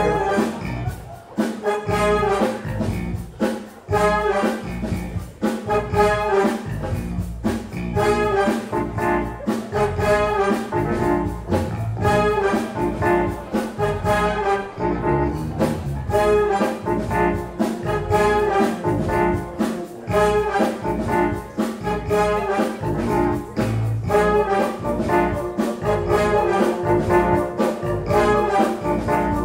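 Fanfare band of brass and saxophones playing a brass-led instrumental passage without vocals, held chords over a steady drum beat.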